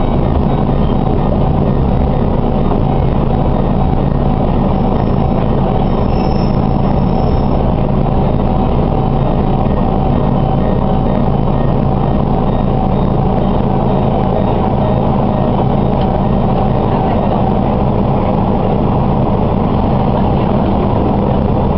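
Diesel railcar's engine running steadily under the floor, with the rumble of the car, heard from inside the passenger cabin.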